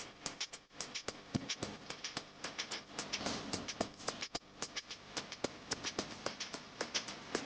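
Kitchen utensils tapping and clicking at home cooking, several irregular sharp taps a second with a faint scraping hiss between them.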